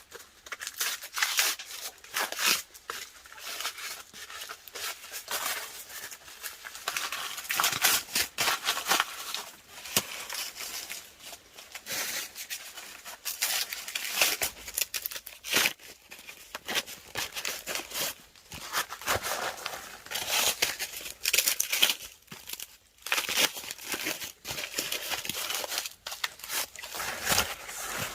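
Irregular crackling, rustling and tearing noises: a dense run of short, sharp clicks and rustles with brief pauses.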